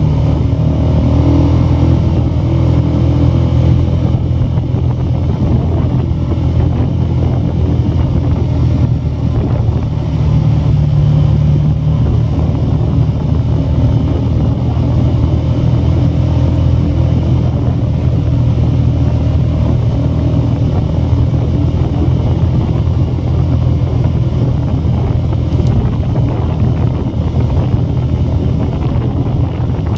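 Steady low engine drone and tyre noise of a vehicle driving along a dirt road.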